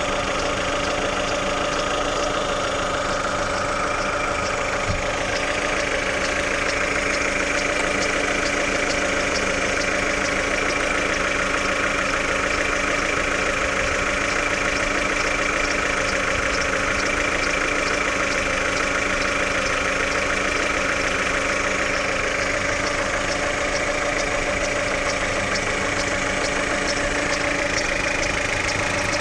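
Chevrolet Lacetti engine idling during warm-up, with an extraneous fast, even ticking over the steady idle. The noise appears only on a cold engine, from about 60 to 75 °C, and goes away once it is warm.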